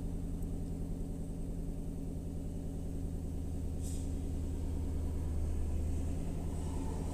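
Nissan Armada's 5.6-litre V8 idling steadily just after being started, with a faint short click about four seconds in.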